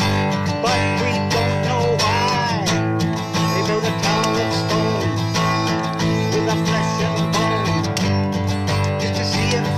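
Acoustic guitar strummed steadily in a continuous rhythm of full chords.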